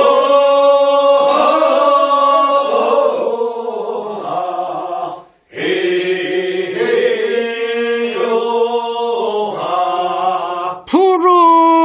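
A group of voices singing the unaccompanied refrain of a Korean rice-paddy weeding work song (first weeding), in answer to the lead singer's verse. It comes as two long held phrases with a short breath about five seconds in, and a single lead voice comes back in near the end.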